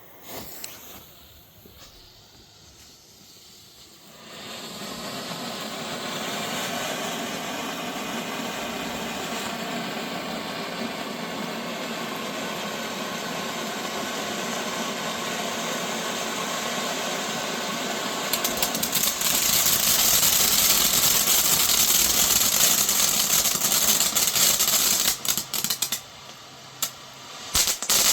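Consumer firework fountain (a beer fountain) spraying with a steady hiss that starts about four seconds in. It gets louder and crackles from about two-thirds of the way through, dips briefly near the end, then crackles again.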